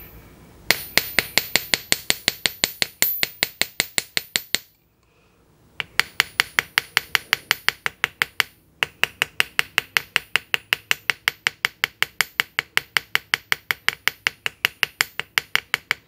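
A chasing hammer's round face strikes a silver strip on a steel anvil in quick, even blows, about five a second, each with a bright metallic ring. The blows stop for about a second five seconds in and break off briefly again near nine seconds. The hammering spreads the end of the strip wider and thinner.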